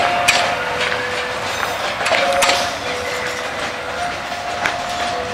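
Railway flat wagons rolling past on the track: irregular wheel clacks and knocks over a rolling rumble, with steady squeals from the steel wheels that come and go at two different pitches.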